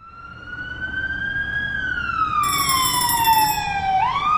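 A siren wailing, fading in from silence. Its pitch rises a little, sweeps slowly down, then climbs quickly again near the end, and a second, higher tone joins briefly in the middle.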